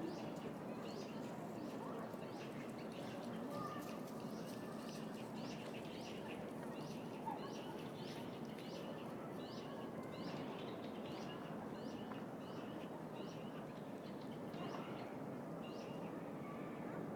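A small bird calling over and over, short falling chirps about twice a second, over the steady background hum of a city park.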